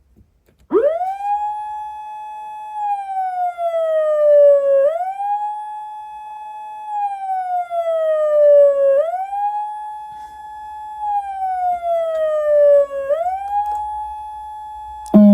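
PATLITE SAP-50 electronic siren amplifier sounding a shrill wail. The tone sweeps up quickly, holds, then slides slowly down, repeating about every four seconds for three cycles. Just before the end a much lower, buzzier siren tone cuts in suddenly.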